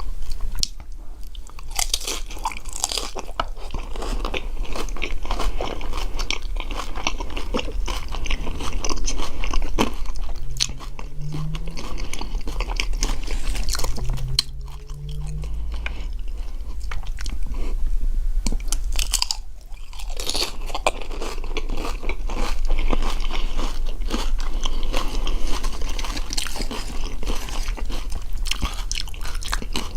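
Close-miked crunching and chewing of nacho chips, bite after bite, with a few brief pauses.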